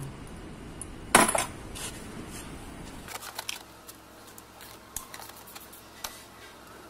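Metal clinks and knocks of hand tools and parts on a car engine's front cover: one loud knock about a second in, then scattered lighter clicks.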